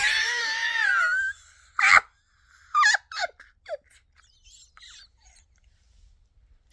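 A woman's high-pitched squeal of relief lasting about a second, then a sharp knock and a few short squeaky vocal sounds.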